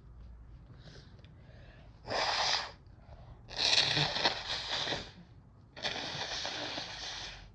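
A person with cold-blocked sinuses sneezing and expelling air hard through the nose three times, set off by chhinkni sneezing powder: a short blast, then two long, drawn-out ones.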